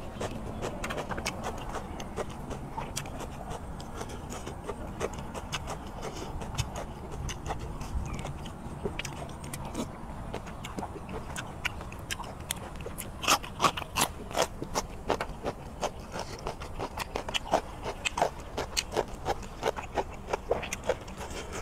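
Close-up chewing and mouth smacking while eating squid, with many short wet clicks; from about 13 seconds in the clicks come thicker and louder.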